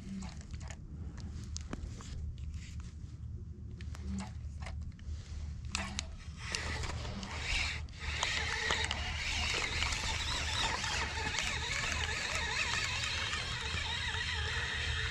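Water lapping and splashing against a kayak hull, with scattered small clicks and creaks; the water noise grows louder from about halfway through, over a steady low rumble.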